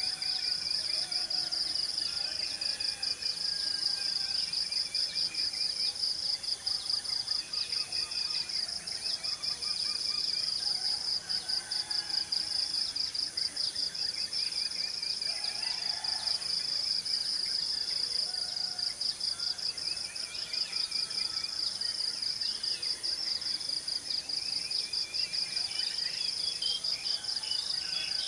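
Insects trilling in a steady, fast-pulsing high-pitched chorus, with scattered bird calls throughout.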